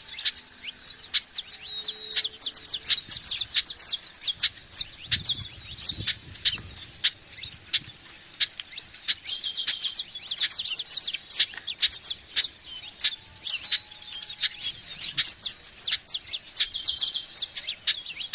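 Many small birds chirping together: a dense, unbroken chatter of short, high, overlapping chirps, many sliding downward in pitch.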